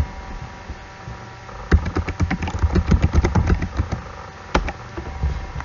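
Computer keyboard keys clicking in a quick run of typing lasting about two seconds, then one more key press a second later, over a low steady hum.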